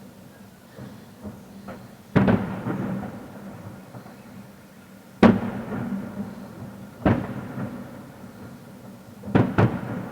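Fireworks shells bursting overhead: loud bangs every two to three seconds, the last a quick double, each trailing off in a rolling echo, with a few fainter pops near the start.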